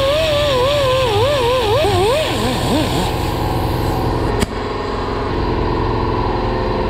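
Die grinder with a small carbide bit cutting into a CB Performance intake manifold end casting, clearancing it to fit the cylinder head. The grinder's whine wavers up and down in pitch as the bit bites. After about three seconds it settles into a steady hum, with a single sharp click about four seconds in.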